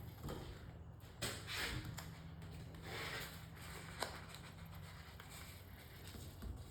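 Hands working a vinyl stripe decal on a car's trunk lid: soft rubbing and rustling swishes as the stripe and its backing paper are handled and pressed down, with one sharp click about four seconds in.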